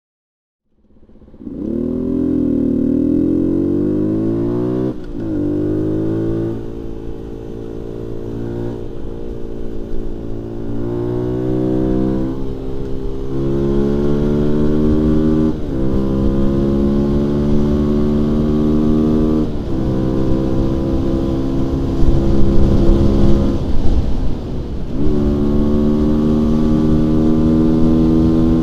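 Husqvarna 125 cc four-stroke supermoto engine starting up about a second in, revving, then accelerating up through the gears. The engine pitch climbs steadily in each gear and drops sharply at each of several upshifts.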